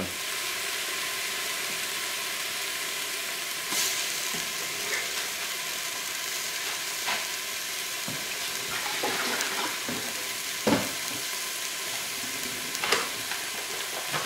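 Sliced mushrooms and onion frying in oil in a stainless steel pot: a steady sizzle, broken a few times by short, sharper pops. The mushrooms have just gone in and are starting to cook down.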